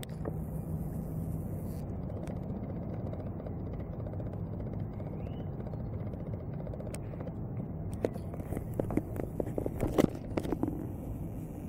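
Jet airliner's engines giving a steady low rumble as it passes low overhead on approach to land. From about eight seconds in, crackling and scraping bursts on the microphone, loudest around ten seconds.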